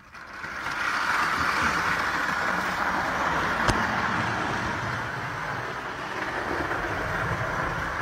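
1912 Bing King George V O gauge clockwork locomotive running on the track, its wound spring motor and wheels making a steady rushing whir that builds up over the first second as the brake is released. One sharp click about three and a half seconds in.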